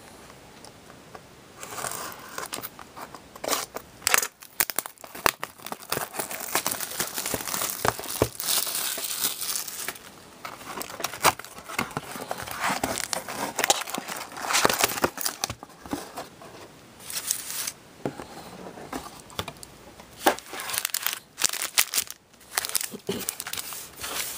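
Plastic shrink wrap being torn and crinkled off a sealed box of hockey cards, then the cardboard box opened and the foil card packs rustled as they are taken out and set down on a table. The sound is a run of irregular crinkles, tears and sharp clicks.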